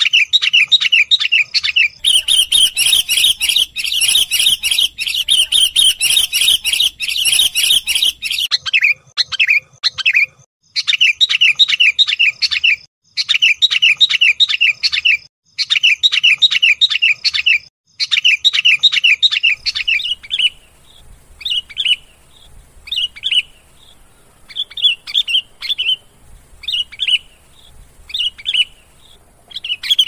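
Sooty-headed bulbuls calling in fast bouts of rapid, repeated chattering notes, densest in the first few seconds. After about two-thirds of the way through the chatter gives way to short separate calls. This is a lure track of the kind played to draw in wild bulbuls.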